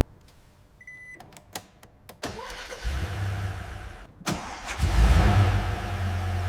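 A short beep and a few clicks, then the Toyota Land Cruiser's V8 engine starting and settling into a steady low idle.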